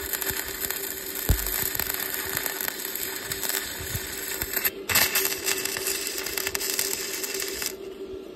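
Flux-core wire welding arc from a Bestarc MIG145 welder, crackling and spattering steadily with a brief break near the middle, then cutting off near the end. A steady low hum runs underneath.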